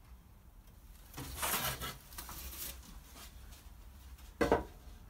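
Workshop handling noise as a gasket is pressed over the studs of a 2CV gearbox's output flange: a scraping rustle about a second in, then a single sharp knock near the end.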